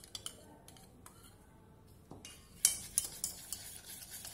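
Near quiet for about two seconds, then a utensil stirring thick yogurt and chickpea flour in a steel pot: repeated clinks against the metal over a soft scraping and swishing.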